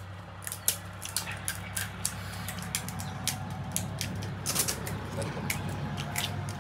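Irregular sharp crackles and crunches of crisp, hollow pani puri shells being cracked open and chewed, over a steady low hum.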